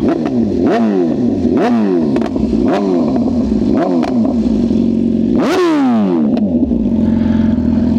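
2024 BMW S1000RR's inline-four engine idling and blipped with the throttle: about five short revs in the first half, then one higher rev a little past halfway that falls back to idle.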